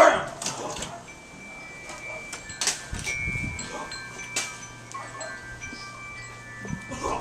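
Wind chimes ringing, with several high notes sounding and overlapping from about a second in. A loud thump comes right at the start.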